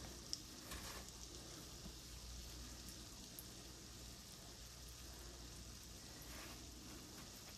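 Faint, steady sizzle of biscuit dough frying in hot grease, with one light click under half a second in.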